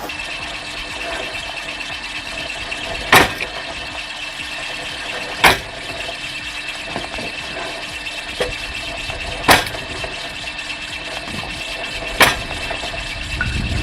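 Homemade log-cutting guillotine chopping wood: four loud, sharp chops a few seconds apart, with a smaller knock between them, over a motor running steadily.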